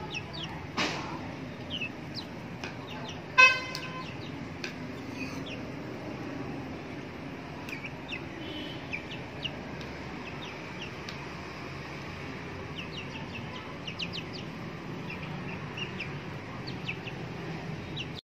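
Chickens pecking egg crumbs off a plastic plate: scattered beak clicks, with short high chirps and soft clucks. About three and a half seconds in comes a single loud, brief honk-like tone.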